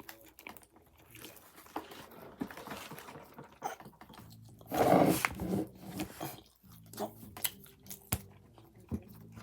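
Chewing and crunching while eating a chicken sandwich: scattered wet mouth clicks, with one louder noisy burst about five seconds in.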